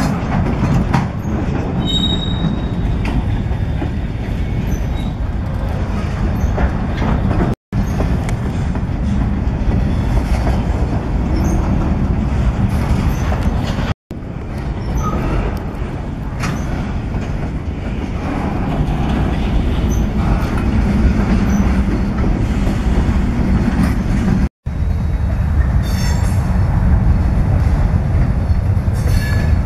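Freight train cars rolling past close by: a steady rumble of steel wheels on the rails, with brief high-pitched wheel squeals. The sound cuts out abruptly three times.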